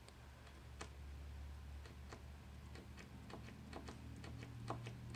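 Paint marker's valve tip pressed and tapped against paper, a string of faint, irregular clicks while the tip is being primed and the ink starts to flow. A low hum runs underneath.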